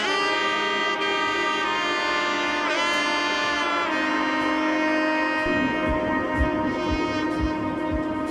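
Background music: a sustained lead melody over held chords, with a note bending in pitch about three seconds in and a steady kick drum beat coming in about halfway through.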